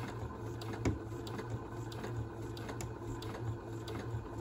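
Electronic domestic sewing machine stitching a double-fold fabric hem, its motor running steadily, with one louder knock just under a second in.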